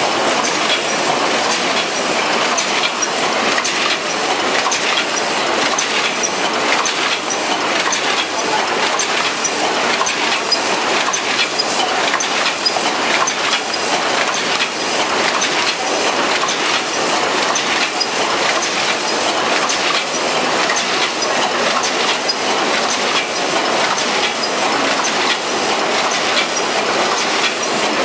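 ZSBJ-100 high-speed paper cup forming machine running at full speed: a steady, rapid mechanical clatter of many small clicks as its rotary mandrel turret forms cups without pause.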